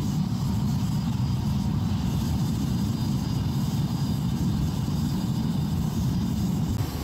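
Smelting furnace firing with a steady low roar while it melts a crucible charge of gold concentrates and flux.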